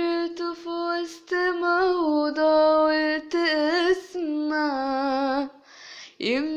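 A woman singing unaccompanied, holding long wordless vowel notes with small melodic turns and vibrato, then taking a breath near the end.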